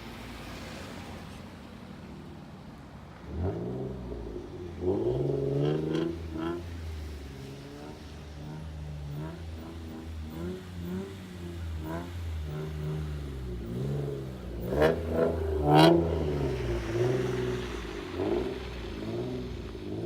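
Infiniti G35 coupe's VQ35DE V6 through test pipes, a Bosal catback and a leaky Y-pipe, first running low, then from about three seconds in revving up and down again and again under throttle. The loudest rev comes about three quarters of the way through.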